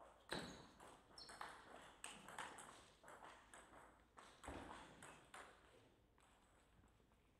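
Scattered sharp clicks of a table tennis ball being struck and bouncing, at uneven intervals, dying away about six seconds in.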